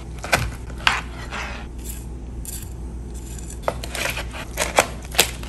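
Chef's knife cutting through a roast chicken and knocking on a plastic cutting board, with metal tongs clicking, as a dozen or so irregular sharp clicks over a steady low hum.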